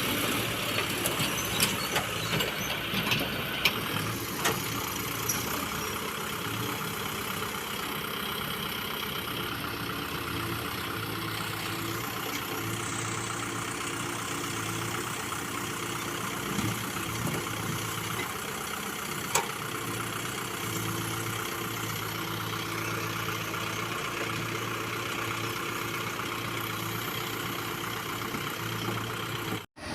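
Diesel engine of a 96 hp Case 851 EX Pro backhoe loader running, its engine speed shifting up and down a few times. Several sharp knocks come in the first few seconds, and one more about two-thirds of the way through.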